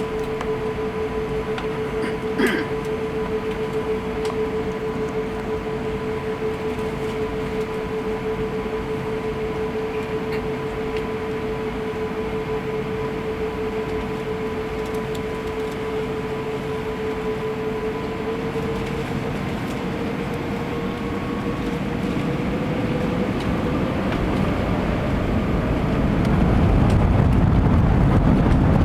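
Airbus A380 cabin noise with its Rolls-Royce Trent 900 engines: a steady engine whine that rises a little in pitch and fades about two-thirds of the way in, as a low rumble builds and grows louder near the end, the engines spooling up for the takeoff roll. A short knock a few seconds in.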